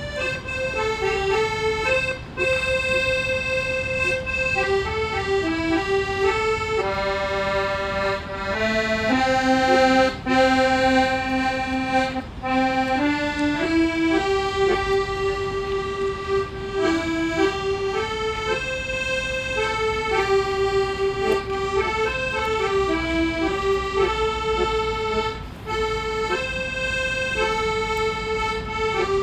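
Accordion playing a melody of held notes that step up and down, with a few brief gaps between phrases.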